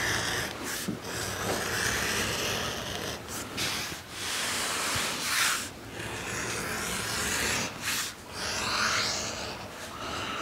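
Edge beveler shaving the edge of a leather belt: a scraping hiss in strokes of one to two seconds, about four passes.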